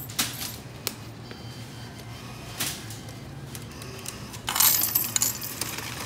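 Coins dropped into the coin tray of a supermarket self-checkout payment machine, clinking: a few single clinks, then a louder clatter of coins about four and a half seconds in.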